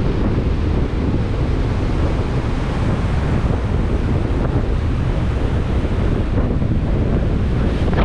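Strong wind buffeting the microphone over heavy storm surf crashing on the beach: a steady, loud, low rumbling noise.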